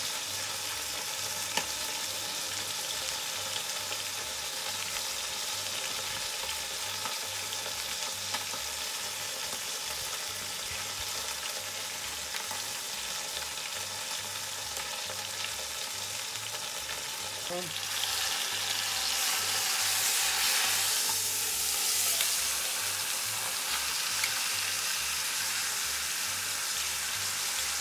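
Beef roast searing in hot lard in a cast-iron Dutch oven, a steady sizzle of hot fat. The sizzle grows louder about two-thirds of the way in.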